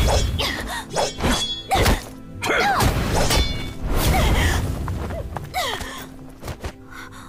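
Background music from an anime soundtrack, with several sharp hits about one to two and a half seconds in. The music fades over the last few seconds.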